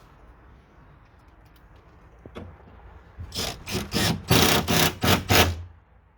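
Cordless power screwdriver driving screws into the timber of a gate to fix a ring latch, running in a quick series of short trigger bursts in the second half. Faint handling clicks come before it.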